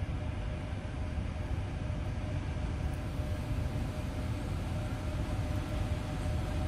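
EP1M electric locomotive and its passenger train approaching: a steady low rumble with a faint, even hum above it.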